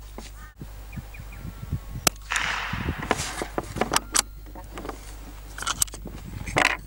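Sharp cracks from a Lithgow LA101 bolt-action .22LR rifle being fired at a target, a few seconds apart, with rustling and small clicks in between.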